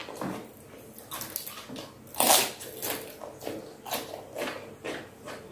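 Raw cucumber being chewed, crunchy and wet, about twice a second, with one loud crisp bite a little over two seconds in.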